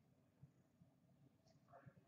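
Near silence: room tone with a few faint, soft ticks.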